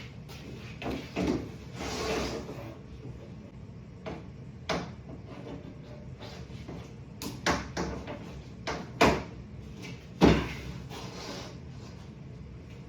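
Model train track sections being handled and laid on the wooden table top: irregular clacks and knocks, with some rustling and scraping early on and the two loudest knocks near the end.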